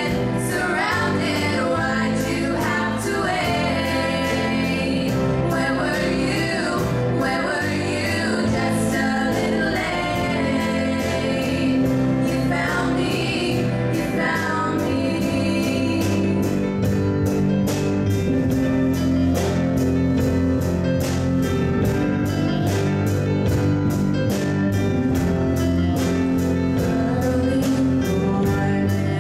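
Female vocal group singing a pop ballad in harmony through microphones, accompanied by an electronic keyboard. After about halfway the voices grow less prominent and a steady accompaniment with an even ticking beat carries on.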